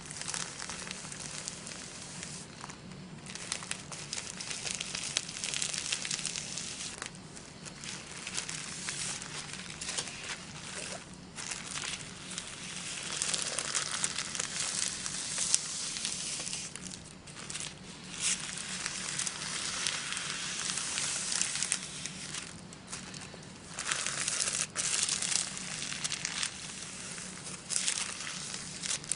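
Sheets of thin gift-wrap tissue paper rustling and crinkling as hands spread and smooth them out. The crinkling comes and goes, with short pauses between handlings.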